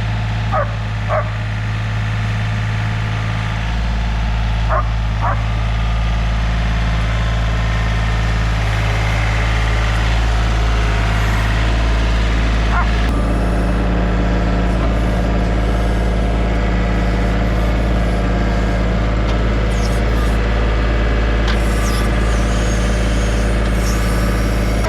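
Diesel engine of a compact tractor-backhoe running steadily at working speed, its note shifting up about four seconds in and changing again near the middle as the load changes. A dog barks in two quick pairs in the first few seconds.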